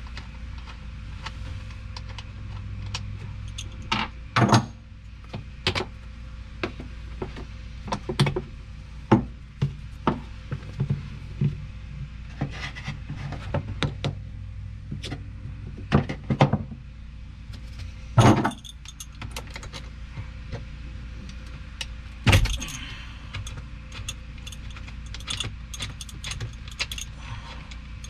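Adjustable wrench clinking and knocking on a marine battery's terminal nuts and bolts as the cables are undone: irregular metallic clicks and taps with a few louder knocks.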